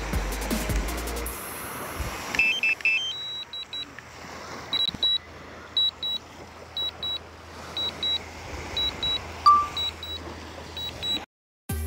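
Background music for about the first second, then a DJI Mavic drone's remote controller beeping. The beeps are short and high, mostly in pairs, about once a second over a steady hiss. They are a flight alert, given while the app warns of high wind.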